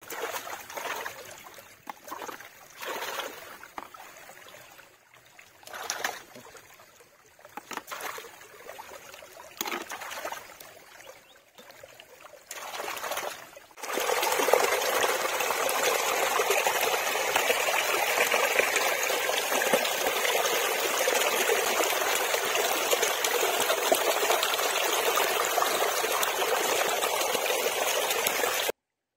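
Water sounds: short, uneven splashes and trickles for about the first half, then a sudden change to a steady, loud rush of running water that cuts off abruptly near the end.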